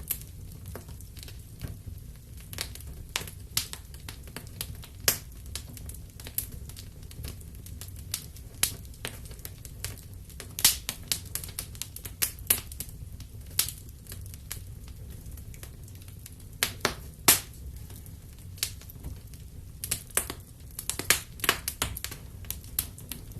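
Wood fire in a fireplace crackling, with irregular sharp pops and snaps over a low steady rumble of the flames. The pops come in clusters, several louder ones close together near the middle and toward the end.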